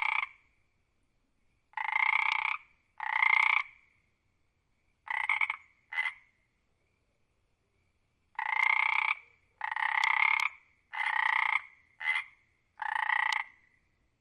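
Frog croaking: about ten croaks, each under a second, in runs of two to five with short pauses between the runs.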